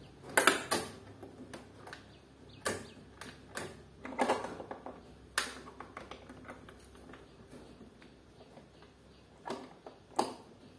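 Sharp metallic clicks and clinks of a chrome swing-bar door guard being handled and pressed into place against an aluminium door, about seven separate knocks at irregular spacing, the loudest about half a second in.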